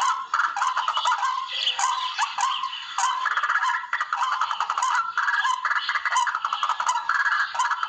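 Barred rail (tikling) calls played as a hunting lure: a continuous stream of rapid, repeated harsh notes.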